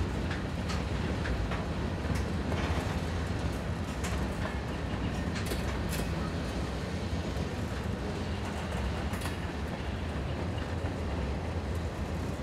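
A railroad train rolling by: a steady low rumble with irregular sharp clicks of the wheels.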